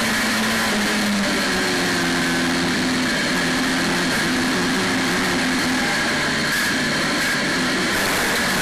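Saloon stock car's engine running at race pace, heard from inside the cockpit. Its note rises and falls over a steady rush of noise.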